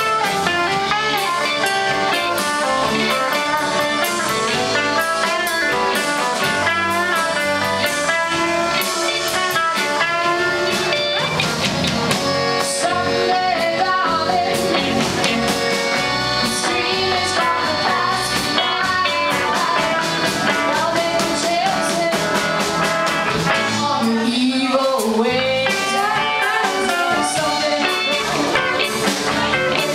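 Live blues band playing: an electric guitar lead over drums and bass guitar, with an accordion in the mix later.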